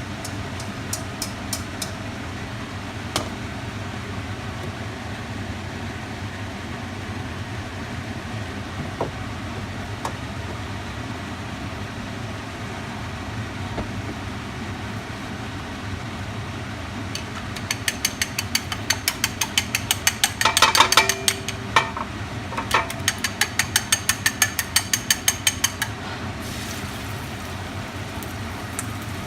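Stir-frying rice noodles in a wok over a steady low rush of frying. About two-thirds of the way in, a metal spatula scrapes and taps against the wok in quick strokes, several a second, for several seconds.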